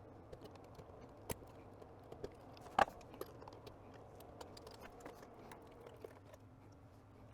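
Scattered small clicks and taps of hand work on the radio's parts during disassembly, the loudest about three seconds in, over a faint steady hum.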